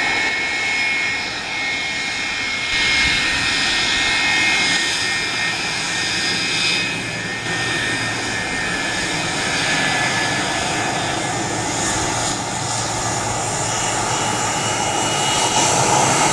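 McDonnell Douglas MD-83's rear-mounted Pratt & Whitney JT8D turbofans running as the jet rolls along the runway. There is a steady high whine over a broad rush of engine noise, growing a little louder near the end.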